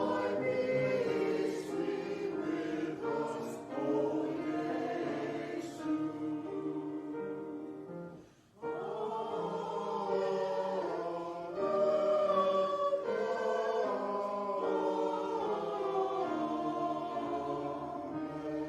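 A choir singing sacred music in sustained, held chords, with a brief break about eight seconds in before the singing resumes.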